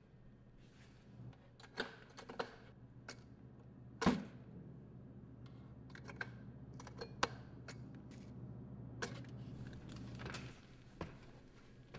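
Scattered clicks and knocks of cable plugs and connectors being handled at an audio mixing desk, with one louder knock about four seconds in. Under them runs a low steady hum that stops near the end.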